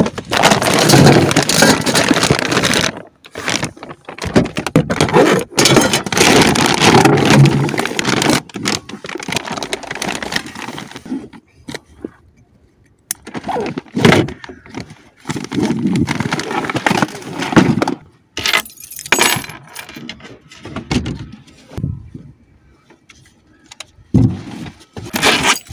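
Objects being handled and moved about: clattering, rattling and clinking in heavy bursts, then in shorter bouts with brief pauses.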